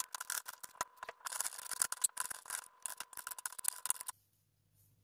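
Kitchen knife chopping onion and green chillies on a cutting board: quick, uneven taps of the blade striking the board, which stop suddenly about four seconds in.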